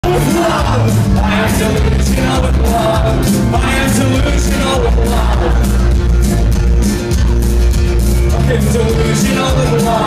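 Rock band playing live: a male singer over strummed acoustic guitar, with bass and a steady drum beat, heard from the audience in a large hall.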